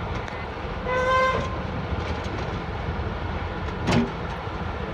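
Heavy diesel equipment running with a steady low rumble. About a second in, a horn gives a short toot, and near the end there is one loud, sharp clank that rings briefly.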